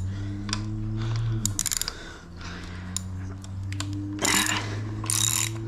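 Small bolt being backed out with an 8 mm socket on a power driver: the motor runs in a few long spells of a second or two each, its pitch creeping up, with clicking and rattling of the tool and bolt.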